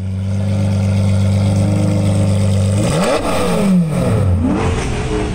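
Straight-piped Lamborghini Murciélago V12 idling steadily, then revved twice, about three seconds in and again near the end, the pitch rising sharply and falling back to idle each time.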